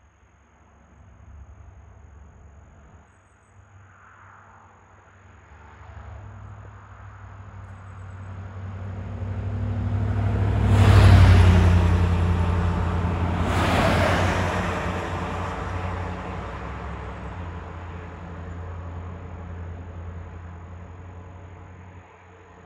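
Road traffic passing on a two-lane road, engine and tyre noise swelling to a peak about eleven seconds in and again about three seconds later, then fading away.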